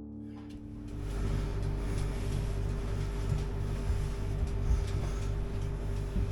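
A steady mechanical hum with one constant tone and a pulsing low rumble under it, with a few short knocks and rustles.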